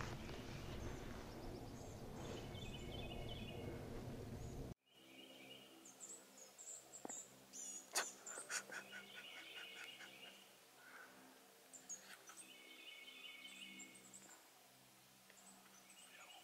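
Rumbling outdoor noise on an action camera for the first few seconds, cutting off suddenly, then a quiet field with birds calling: repeated short trills and high chirps, with a few sharp clicks near the middle.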